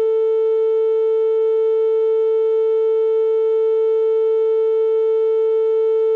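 A steady synthesized tone a little under 500 Hz with fainter overtones above it, held unchanged: an artificial 'ear unclogging' frequency.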